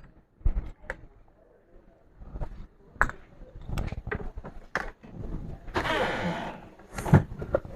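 Scattered small clicks and taps of hand tools working on a subwoofer amplifier's circuit board. A short hiss comes about six seconds in.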